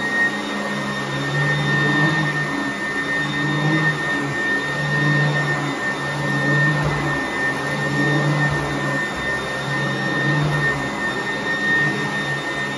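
Sanitaire commercial upright vacuum cleaner running steadily on carpet, with a constant high motor whine. A lower hum swells and eases about every second and a half.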